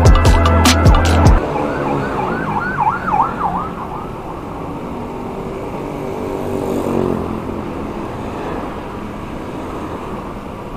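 Music with a heavy beat cuts off about a second in. Then a siren yelps, its pitch swinging quickly up and down several times a second for about two seconds, over steady traffic noise.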